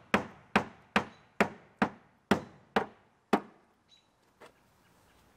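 Thick Bondo body filler on a car body being chipped off with a series of sharp, evenly spaced blows, about two a second. Eight strikes, stopping about three and a half seconds in, then a faint tap near the end.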